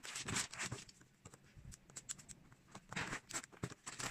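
Plastic packing strap being pushed and pulled through the tight weave of a strap-woven bag, rustling and scraping against the other straps. It comes in two short spells of scratchy strokes, one at the start and one about three seconds in.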